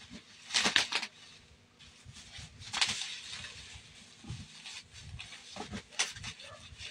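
Black plastic bubble-wrap packaging being torn open and crinkled by hand, in three short bursts of rustling, the loudest about a second in.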